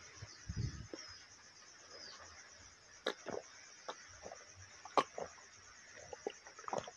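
Drinking water from a glass held close to the microphone: a soft low thump near the start, then a scatter of short clicks and gulps, the sharpest about five seconds in.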